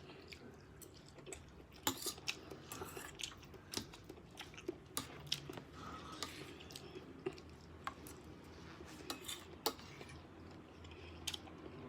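A person eating close to the microphone: faint chewing, with irregular little clicks and taps of cutlery against a dish.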